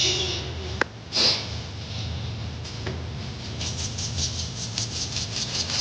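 A woman shushing a baby: a 'shh' at the start and another short one about a second in, then a run of soft, quick rustles, about four or five a second, over a low steady hum.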